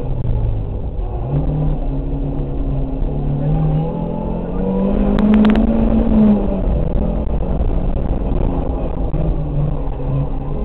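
Rally car engine heard from inside the cabin, revving up and down as the driver works through the gears on a special stage. About four seconds in it pulls one long rising rev, then lets off. A few sharp clicks come at the top of that rev.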